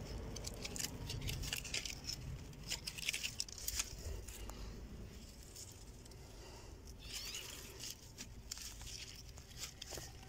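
Hands working soil and plant stems while setting cuttings into a box of earth: scattered scratchy rustles and small clicks, busiest in the first four seconds. A brief high chirp about seven seconds in.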